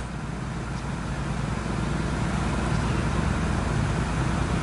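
Diesel engine of a Komatsu PC200 long-reach excavator running steadily with a low hum, getting louder about a second and a half in.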